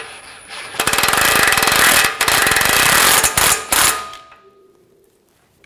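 Impact wrench hammering a control-arm ball-joint nut snug. It rattles continuously for about three seconds, starting about a second in, then stops.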